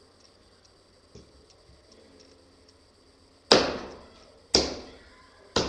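Hammer striking a screwdriver to break open a small battery's casing: three sharp blows about a second apart, each ringing briefly.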